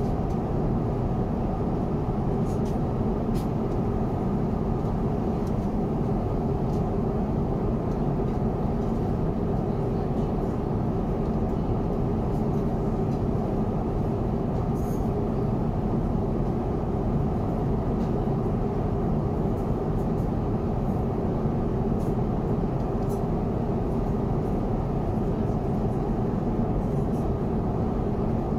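Steady cabin noise of an Airbus A350-900 in cruise: an even, low rush of airflow and engine noise, with a few faint clicks.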